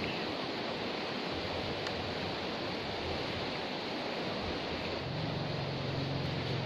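Steady rushing of a river running high after a flood. About five seconds in, a low engine hum comes in underneath.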